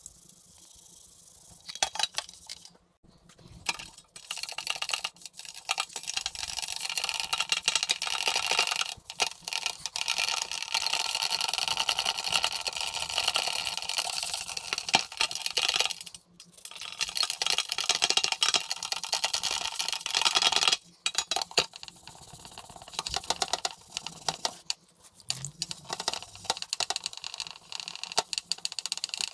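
Damp kitchen sponge scrubbing across a tarnished silver plate in citric acid solution: a steady wet rasping with a few short pauses, as the oxidation is rubbed off.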